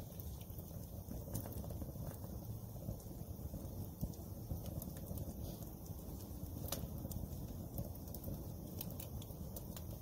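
Wood fire burning: a steady low rumble with scattered crackles and pops.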